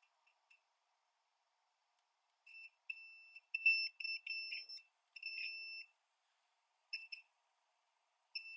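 A digital multimeter's continuity beeper sounding in short, broken beeps as the probes touch points on a laptop motherboard. The steady high tone is chopped where the probe contact makes and breaks, and each beep signals a path through, here to ground.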